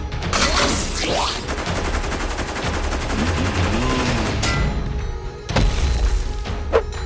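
Sound effects of a robot battle: a burst of rapid machine-gun fire lasting about three seconds, then a sudden crash about five and a half seconds in, all over background music.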